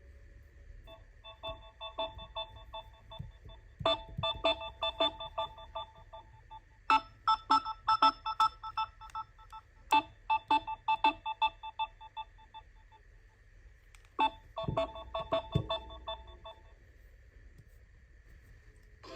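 Smartphone ringtone playing: a melodic electronic pattern of quick, short notes in about five phrases with brief pauses between them, over a faint steady high tone.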